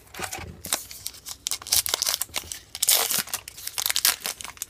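A trading card pack wrapper being torn open and crinkled, with the cards rustling as they are handled. Irregular bursts of crackling, loudest about two and three seconds in.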